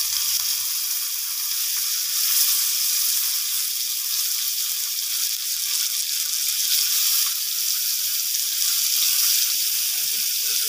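Pieces of catla fish frying in hot oil, a steady sizzle.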